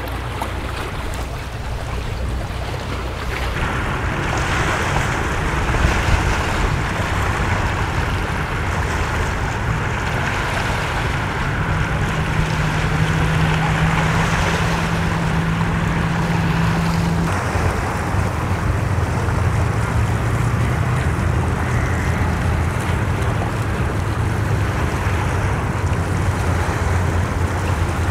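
Engines of passing powerboats running steadily over open water, with a held engine tone for a few seconds midway. Wind on the microphone and water noise run beneath.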